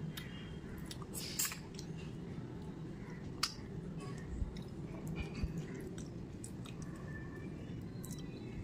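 Close-up mouth sounds of eating khichdi by hand: chewing, wet lip smacks and finger-licking, heard as scattered short clicks over a steady low hum.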